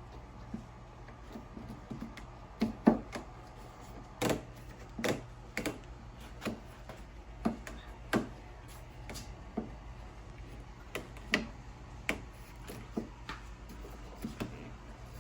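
Irregular light clicks and knocks from hands working the rubber window seal out of a BMW E60 rear door frame.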